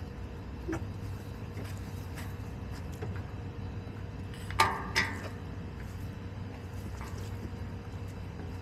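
Backyard hens: two short, sharp clucks about half a second apart a little past the middle, over a steady low background hum, with a few faint ticks of hens pecking and scratching in the litter.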